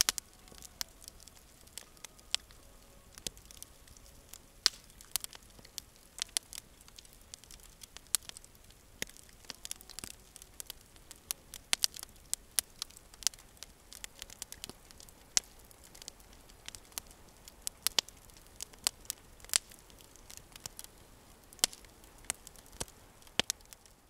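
Wood campfire crackling, with irregular sharp pops a few times a second.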